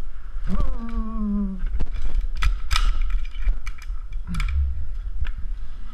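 Metal clicks and clacks of a Climbing Technology Sparrow rope descender and its carabiner being worked by hand on the rope, a string of sharp clicks over several seconds. A drawn-out vocal sound falling in pitch comes just before the clicks.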